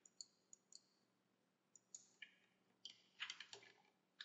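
Faint computer keyboard keystrokes and mouse clicks: scattered single clicks, with a quick run of clicks about three seconds in.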